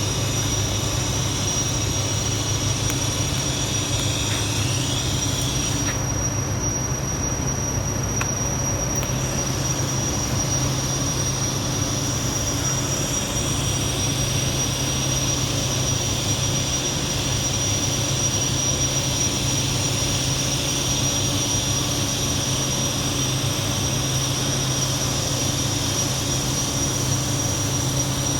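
TIG welding arc on 4-inch schedule 10 pipe: a steady hum with an even hiss and a thin high whine. The upper hiss thins for a few seconds about six seconds in.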